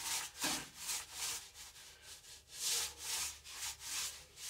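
Small paint roller rolled back and forth over a textured painted wall, spreading resin: a run of short scratchy swishes about two a second, with a pause of about a second partway through.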